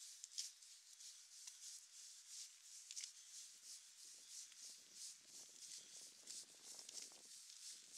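Footsteps at walking pace on wet pavement, a soft scuff a little less than twice a second, over a faint steady hiss of rain. A faint low rumble swells through the middle and fades near the end.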